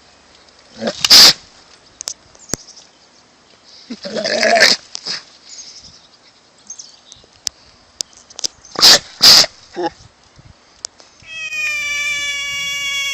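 A domestic cat making short meows and harsh, noisy calls, followed near the end by one long, steady, high-pitched held call.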